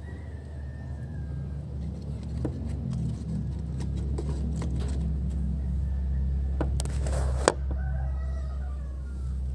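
Taps and rustles of fireworks rockets handled in a cardboard box over a steady low rumble, with a short scrape ending in a sharp knock about seven seconds in. A rooster crows faintly near the start and again near the end.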